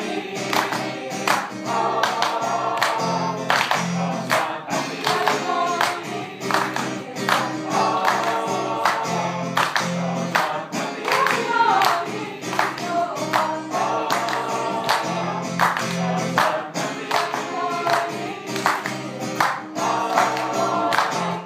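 A mixed choir of men and women singing together, with a steady beat of hand claps keeping time. The song stops abruptly at the very end.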